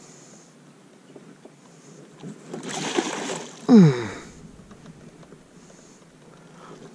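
A hooked carp thrashing at the water's surface, splashing for about a second near the middle. Right after it comes a short, loud exclamation from a man's voice, falling in pitch.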